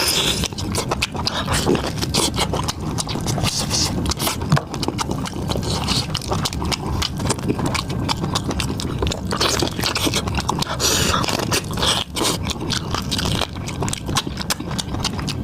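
Close-miked eating sounds: a person chewing and biting food, with dense, irregular crunchy clicks and wet mouth noises.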